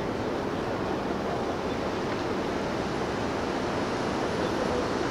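Steady rushing rumble from a large cruise ship manoeuvring away from its berth, with water churning around the hull.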